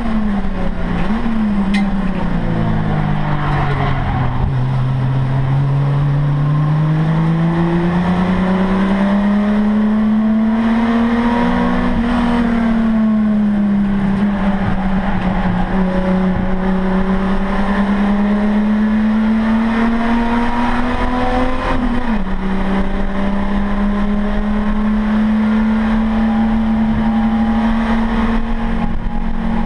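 Race car engine heard from inside the cabin at racing speed. Revs fall over the first few seconds as the car slows, climb slowly under power, then drop sharply at a gear change about 22 seconds in and hold steady.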